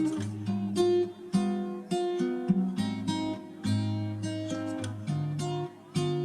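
Background music: guitar chords struck about once a second.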